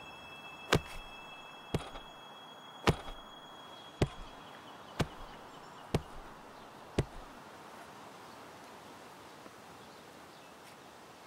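A heavy pipe wrench clubbing a person, seven blunt blows about a second apart, stopping about seven seconds in.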